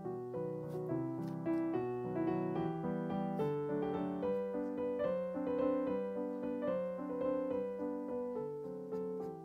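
Background piano music: a gentle melody of single notes over sustained chords.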